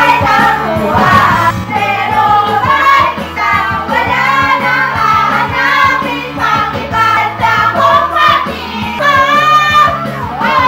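A group of voices, male and female, singing together into karaoke microphones over a backing track.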